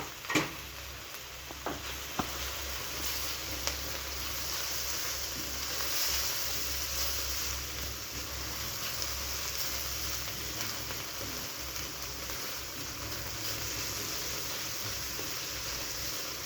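Chopped onions sizzling steadily as they fry in hot oil in a pan. A few sharp taps of the stirring utensil on the pan come in the first few seconds.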